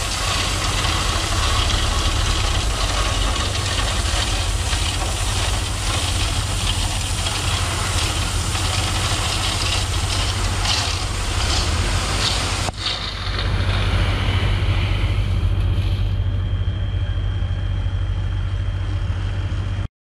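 Dump truck engine running steadily while the raised bed tips out crushed stone, the rock pouring and sliding out in a continuous rush. About two-thirds through the rushing stops abruptly and the engine runs on alone.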